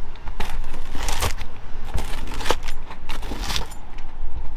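A freshly baked pizza being sliced: a cutting blade scraping and crunching through the crust several times in short strokes, over a steady low hum.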